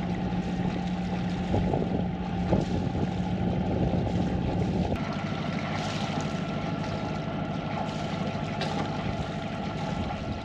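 Sailboat's inboard diesel engine running steadily at low revs, about 1300–1400 rpm, pushing the boat along under power. Its tone changes slightly about halfway through.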